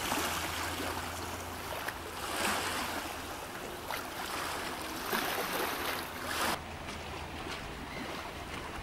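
Outdoor rush of wind and small waves at the water's edge, swelling and easing a few times and dropping back a little after six seconds.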